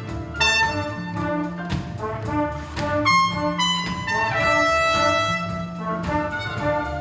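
A live wind band with brass, trumpets to the fore, playing a rhythmic piece: a low note held for under a second about every two seconds, with shorter notes and brass lines over it.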